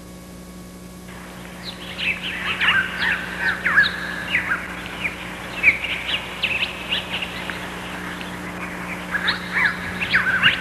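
Small birds chirping and singing in quick, short calls, starting about a second and a half in, over a steady low hum.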